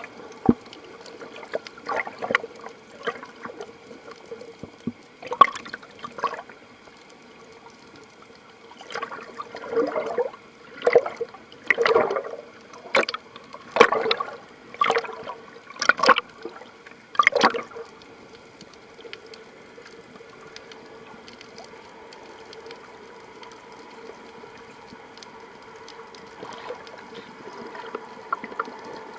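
Underwater recording through a camera housing: water sloshing and gurgling in irregular bursts, coming about once a second for several seconds in the middle, then easing off, over a faint steady hum.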